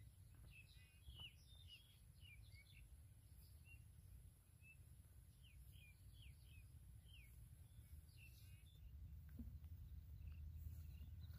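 Faint bird chirps, short quick notes in two bunches, over a low steady rumble of wind.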